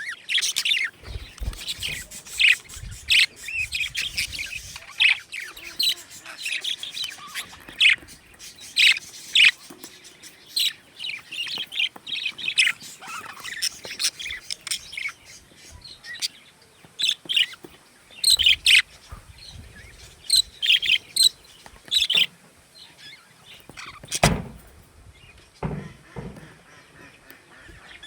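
Budgerigars chirping and chattering in quick, high, short calls, busiest in the first half and again later on, with a sharp knock about three-quarters of the way through.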